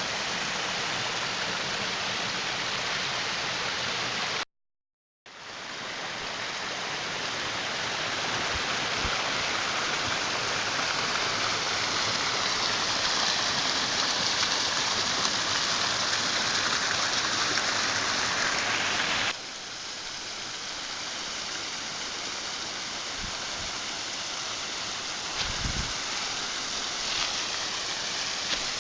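Waterfall: a steady rush of falling water. It cuts out completely for under a second about five seconds in, then steps down a little in loudness about nineteen seconds in.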